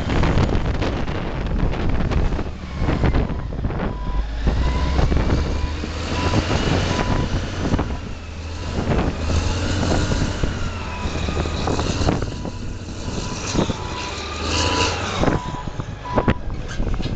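Caterpillar 992C wheel loader's diesel engine running as the machine drives, with a low, heavy rumble. From about four seconds in, its backup alarm beeps in a series of short, same-pitched beeps.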